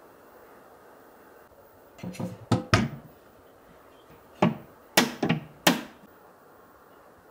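Wooden cabinet doors knocking and clacking as a hand works them open. There are about three sharp knocks around two seconds in, then four more over the next few seconds. The door is sticking and won't open easily.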